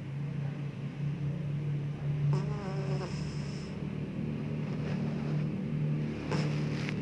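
Bengal cat snoring in its sleep: a low, steady drone that swells and eases with its breaths, with a brief wavering squeak about two and a half seconds in.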